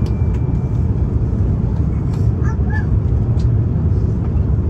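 Deep, steady cabin roar of an Airbus A350-941 on approach, heard from a seat inside the cabin: engine and airflow noise from its Rolls-Royce Trent XWB turbofans.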